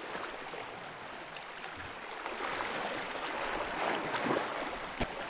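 Small sea waves washing and foaming over seaweed-covered shore rocks, a steady splashing wash that swells about halfway through. A single sharp knock near the end.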